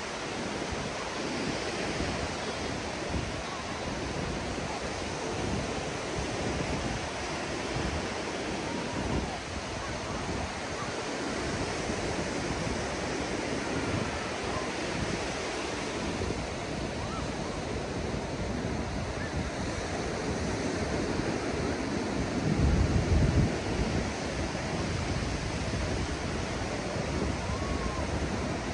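Ocean surf breaking and washing up a sandy beach, with wind buffeting the microphone, hardest about three-quarters of the way through.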